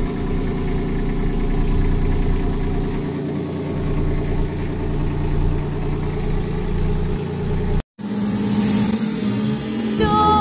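Self-propelled boom sprayer's engine running steadily. The sound cuts out for an instant about eight seconds in and comes back rougher, and music starts near the end.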